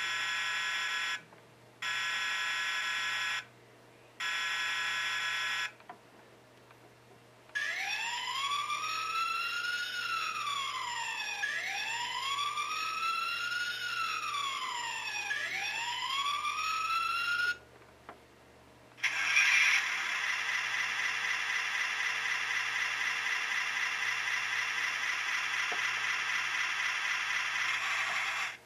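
Bruder Light & Sound module, a battery toy light bar, playing its electronic sounds. First come three steady blasts of about a second and a half each. Then a siren wails up and down in slow rises and falls, and after a short gap a continuous fast-wavering siren tone runs on until it cuts off near the end.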